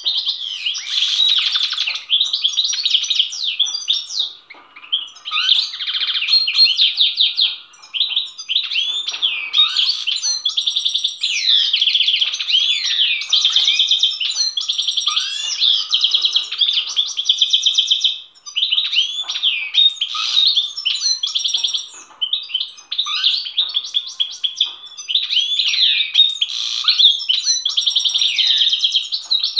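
Caged European goldfinch singing a long, almost unbroken song of fast twitters, trills and gliding notes, with a few short breaks.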